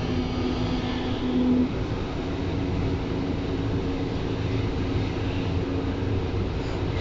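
Berlin U-Bahn train running between stations, heard from inside the car: a steady rumble of wheels on track with a humming tone that drops out about a second and a half in.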